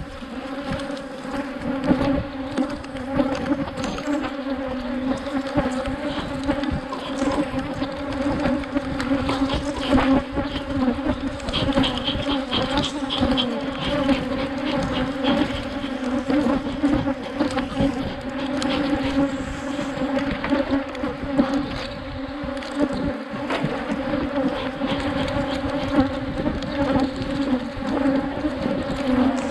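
A mass of Africanized honey bees buzzing around an opened hive: a steady low hum with evenly spaced overtones, with scattered light knocks over it.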